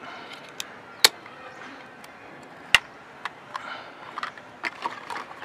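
Sharp plastic clicks and snaps as the clear waterproof housing of an Eken H9R action camera is unlatched and opened and the camera handled. Two loud snaps stand out, about one second and nearly three seconds in, with lighter clicks after.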